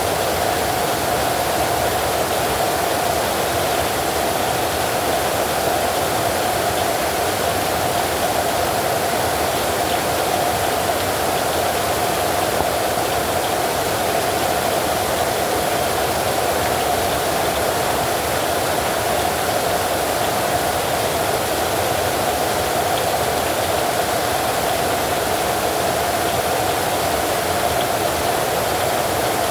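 Steady heavy rain, an unbroken even rush with no thunderclaps.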